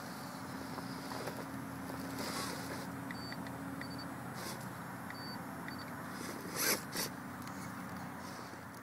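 Electric motor and gear drivetrain of an Axial XR10 RC rock crawler whining steadily at low crawling speed, with tyres scraping and grinding on rock. The whine fades about halfway through, and two sharp knocks come just before the end as the chassis shifts on the stone.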